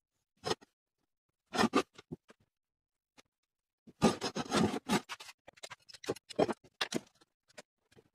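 A felt-tip marker scratching along a steel knife blank, and the steel blank scraping and knocking on a plywood workbench as it is handled, in short bursts. The longest and loudest scrape comes about four seconds in.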